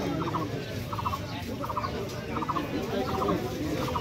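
A short warbling chirp repeating steadily, about once every 0.7 seconds, over a background murmur of voices.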